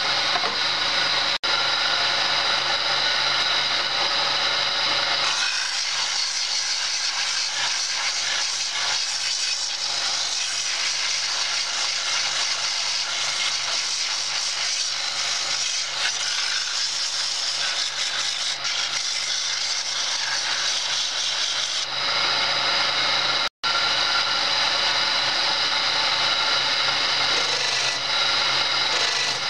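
Homemade belt-driven wood lathe running, its electric motor humming steadily while a hand-held chisel cuts a spinning wooden spindle with a continuous rough scraping. From about 5 s to 22 s the scraping of the cut covers the hum. The sound drops out for an instant twice.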